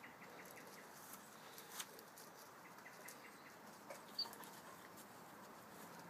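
Near silence: faint outdoor ambience with scattered faint clicks and one short high chirp about four seconds in.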